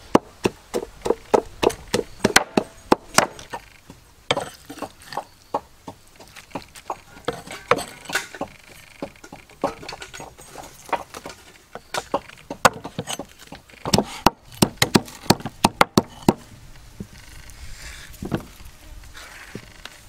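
Chopping on wood with a blade: runs of sharp knocks, about three to four a second, at the start and again past the middle, with scattered knocks between.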